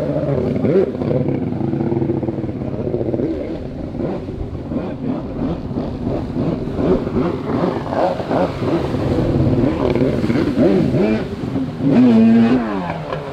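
Jet ski engine revving up and down as the rider carves and does tricks across the water, its pitch rising and falling again and again, with the loudest rev about twelve seconds in.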